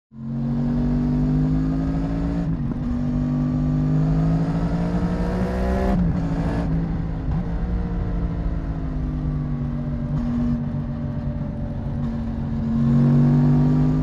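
Yamaha MT-10's crossplane inline-four running through an SC-Project SC1 exhaust under way. The engine note climbs under acceleration and drops sharply about two and a half and six seconds in. It then holds fairly steady and rises again near the end.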